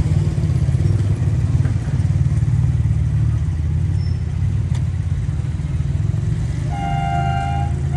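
A steady low rumble, then about seven seconds in a train's air horn sounds a multi-tone chord, holds for about a second, breaks off briefly and starts again at the very end.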